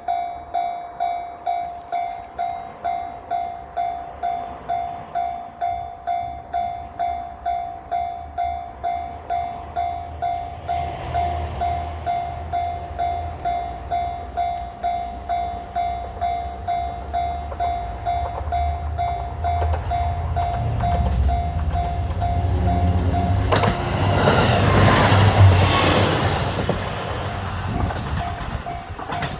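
Japanese level-crossing warning bell ringing in a steady repeating ding, about one and a half strikes a second, while a diesel railcar's rumble builds. About three quarters of the way in the train runs through the crossing, loudest for a few seconds with wheels clattering over the rail joints, and then the bell rings on.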